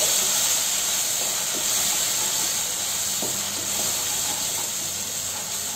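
Ginger-garlic-green chilli paste frying in hot oil in a kadhai, sizzling with a steady hiss while it is stirred with a wooden spatula. A few light scrapes of the spatula come through.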